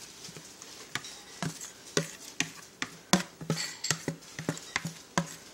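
White spatula knocking and scraping against a pink plastic bowl as shredded chicken is tipped out of it into a pot of broth: a run of irregular clicks and taps, two or three a second.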